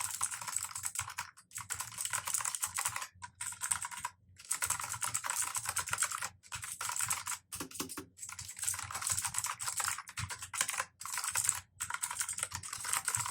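Typing on a Cosmic Byte mechanical keyboard with clicky blue switches: a fast, dense run of sharp key clicks, broken by several short pauses.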